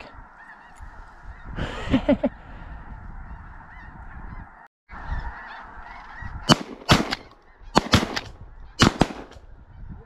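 Shotguns firing five shots in quick succession between about six and nine seconds in, over the steady clamour of a large flock of geese calling. A louder goose call comes about two seconds in.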